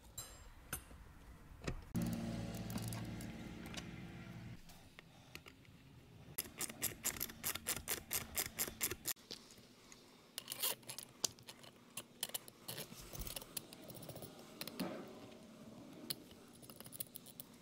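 Hand tools working on a metal pulley and shaft: runs of quick, evenly spaced metallic clicks, about five a second at their densest, with a brief low hum about two seconds in.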